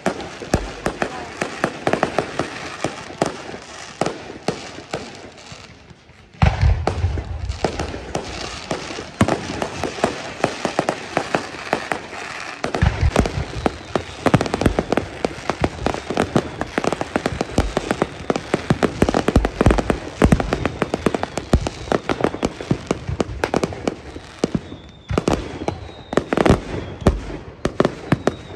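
Fireworks display: a continuous barrage of shells bursting with sharp bangs and crackling. About six seconds in it turns suddenly louder, with deep booms among the rapid reports.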